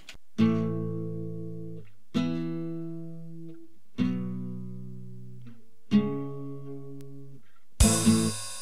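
Acoustic guitar: four single strummed chords about two seconds apart, each left to ring out and fade. Near the end comes a louder, harsher run of quick strums.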